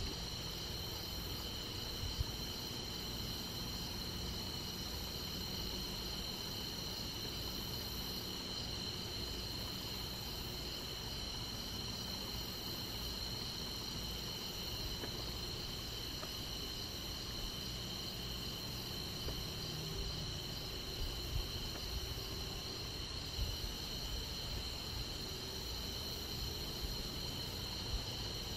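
Crickets chirping in a steady, high-pitched chorus that does not let up.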